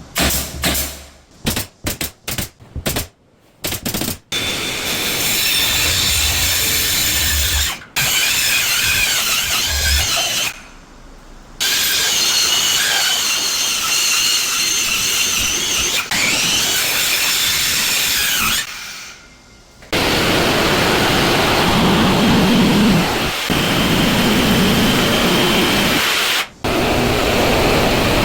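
Power tools at work on wood: a few short bursts, then long runs with a high wavering whine, stopping briefly twice. From about twenty seconds in comes a heavier, lower running noise with little whine.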